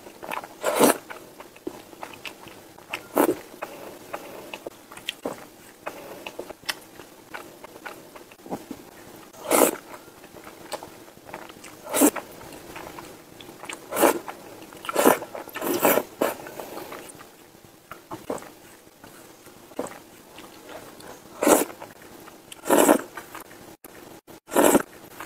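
A person slurping mouthfuls of noodles in dark sauce: loud, short sucking pulls every one to three seconds, with wet chewing between them.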